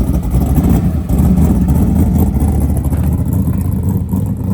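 Loud, rough low rumble of a car engine running, easing slightly near the end.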